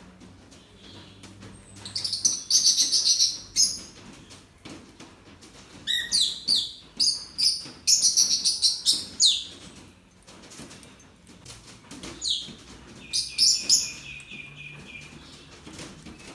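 Small birds chirping in three loud bouts of rapid, high-pitched calls, each lasting a few seconds, with quieter gaps between.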